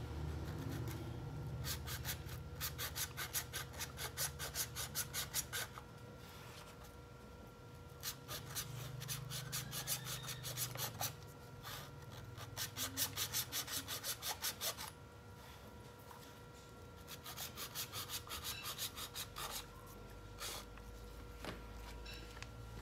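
A bare hand-held saw blade sawing through the hard shell of a trimmed young coconut in quick back-and-forth rasping strokes, about three or four a second, in several runs with short pauses between; the sawing stops a couple of seconds before the end.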